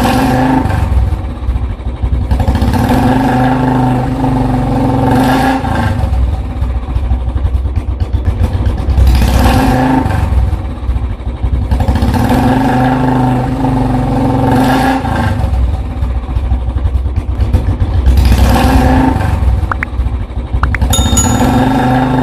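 Motorcycle engine sound, running and revving up in repeated swells about every four to five seconds, laid over the toy bike's pulling scene. Near the end, a couple of sharp clicks and a short chime.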